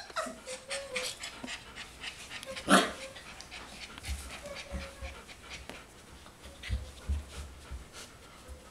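Four-week-old golden retriever puppies panting quickly, with a few brief faint whines and one much louder sharp sound about three seconds in. Low thumps follow in the second half as they play.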